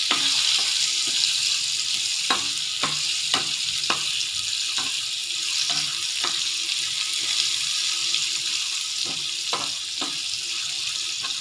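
Potato slices sizzling steadily in hot oil in a frying pan, with a spoon clicking and scraping against the pan now and then as they are stirred.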